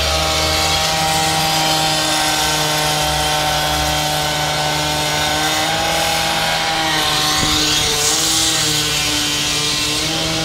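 Gas-powered handheld cut-off saw running at steady high revs while wet-cutting a concrete sidewalk. Its pitch dips slightly and the cutting hiss grows a little past halfway.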